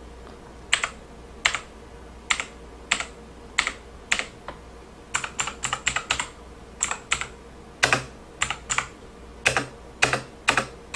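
Keys on a mechanical keyboard with clicky Kailh Blue switches pressed one at a time, each a sharp click. The presses come at a slow, uneven pace at first, then in quicker runs in the middle.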